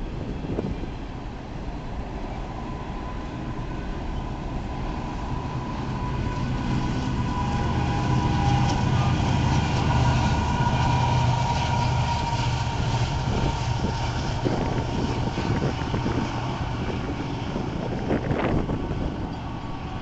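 Union Pacific double-stack intermodal train rolling past with steady wheel and rail rumble from the container cars. About halfway through, its rear distributed-power locomotives pass: GE Evolution-series (GEVO) #7708 and a trailing EMD SD70M. Their diesel engines' low drone grows louder, then eases off.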